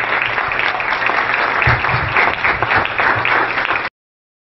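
Audience applauding, a dense patter of many hands clapping, which cuts off abruptly near the end.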